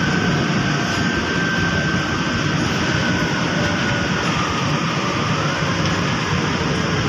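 MRT-3 light-rail train running, heard from inside the passenger car: a steady rumble and rush with a high whine that dips in pitch about four seconds in and climbs back up a second later.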